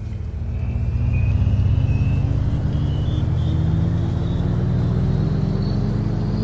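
Vehicle engine running and slowly gaining speed, its pitch rising steadily, with a faint high whine rising alongside it. It grows louder over the first second.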